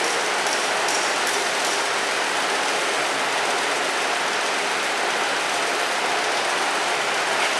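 The motor-driven pump of a nozzle-type vacuum packing machine running, a steady, even mechanical noise with a few faint light clicks about a second in.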